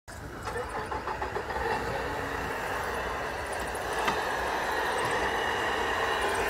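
Electric motor and gears of a radio-controlled scale crawler truck whining steadily as it crawls over sticks and logs. The sound grows louder about four seconds in, with a single sharp click.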